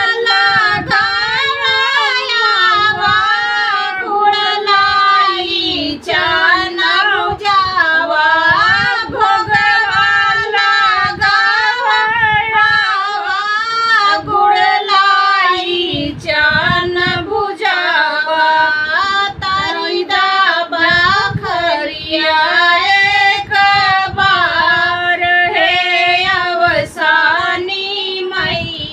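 A woman singing an Awadhi devotional folk song (a geet to Asani Mata) in a high voice, the melody held and wavering with ornaments, with short breaks between phrases.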